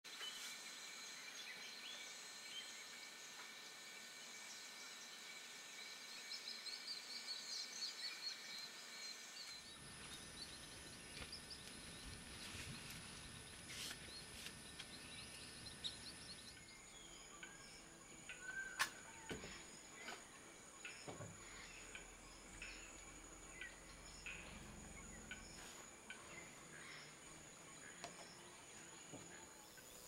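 Faint rainforest-clearing ambience: a steady insect drone with high thin tones and scattered bird chirps, with a flurry of chirps about six to eight seconds in. A few sharp clicks stand out, the loudest about nineteen seconds in. The background changes abruptly around ten and seventeen seconds in.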